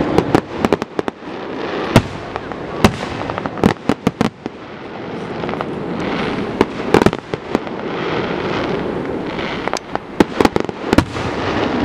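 Fireworks display: aerial shells bursting overhead in a rapid, uneven series of sharp bangs and pops, bunched in quick clusters several times over a continuous rumble.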